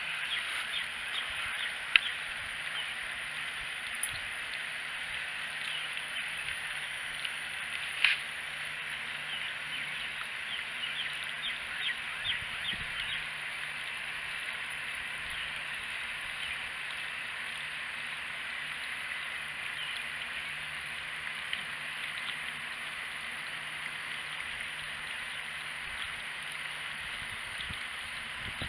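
Garden hose water running steadily into a plastic watering can, with a cat lapping at the flow in quick runs of small wet ticks, about four a second. A few sharp knocks break in, the loudest about eight seconds in.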